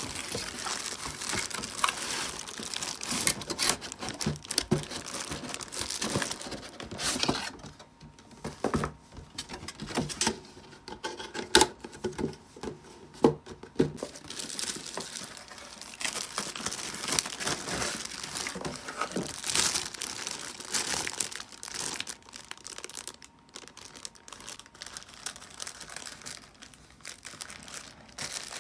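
Packaging of a boxed prize figure being handled and opened: plastic wrapping crinkling and tearing in irregular crackles, with a few sharper snaps around the middle.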